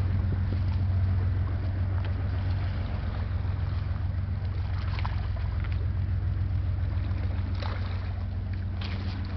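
Steady low engine drone from the pusher tug Olive L. Moore moving the barge Menominee downriver, over a light hiss of wind and water, with a few short rushes of noise near the end.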